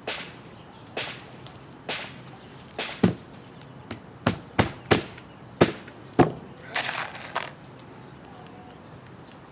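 Hammer blows driving roofing nails into asphalt shingles: about eleven sharp strikes at an uneven pace, some in quick pairs. A brief scraping rustle follows about seven seconds in.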